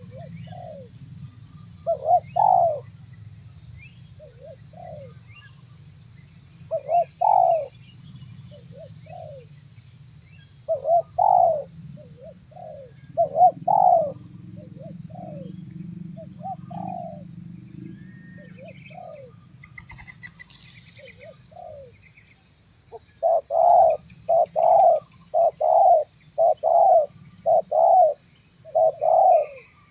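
Spotted doves (tekukur) cooing: repeated phrases of low coos every few seconds, turning to a quicker run of calls about one a second in the last third. Faint high chirps of small birds and a low rumble sit underneath.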